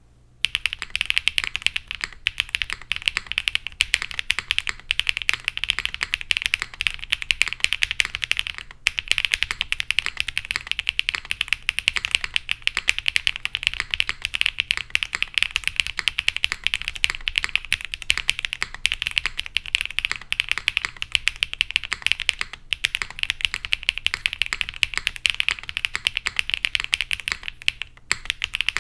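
Fast, continuous typing on a Meletrix Zoom75 mechanical keyboard with Gateron Smoothie linear switches, a polycarbonate plate with plate and PE foam, and GMK Diner ABS keycaps. It is a dense stream of keystroke clacks that starts about half a second in, with a few brief pauses.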